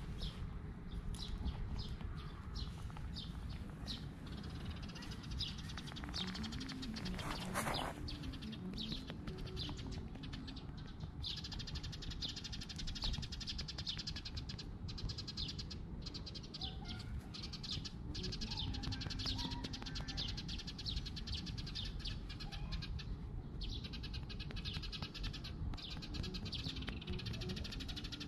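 Tabby cat meowing a few times, the clearest call rising and falling about six to eight seconds in. Under it runs steady low background noise, and a fast high ticking starts partway through.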